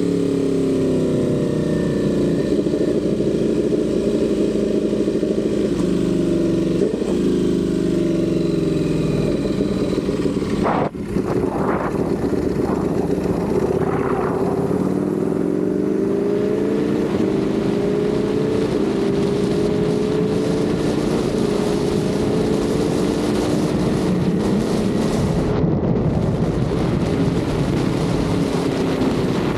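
Ducati Panigale V4's V4 engine running under way, its note shifting in pitch. About a third of the way in the sound drops out briefly, then the pitch dips and climbs slowly through the rest.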